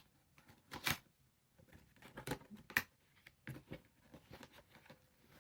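Product packaging being opened by hand: a series of faint scrapes and rustles of cardboard and plastic, the strongest about a second in and again between two and three seconds in.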